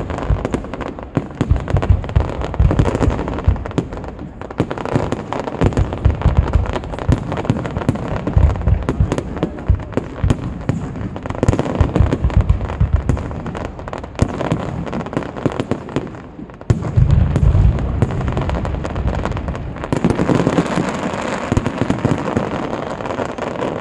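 Aerial fireworks display going off in a continuous barrage of overlapping bangs and heavy low booms from bursting shells. A louder, denser run of booms begins about seventeen seconds in.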